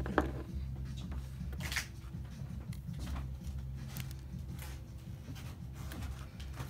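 Small tool-handling noises at a workbench: a few faint clicks and scrapes as a soldering iron and pliers are handled against foiled glass pieces, over a steady low hum.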